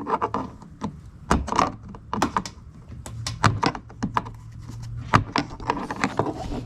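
Quick clicks, knocks and thunks of plastic trim and push-pin clips being pried and popped loose on a Jeep Wrangler JL's front bumper. A low steady hum joins in for about two seconds in the middle.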